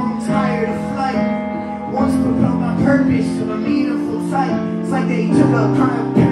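Live band music, an instrumental passage of held keyboard chords that change every second or two, with shorter notes over them.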